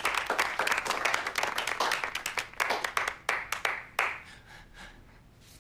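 A room full of people applauding, the clapping thinning out and dying away about four seconds in.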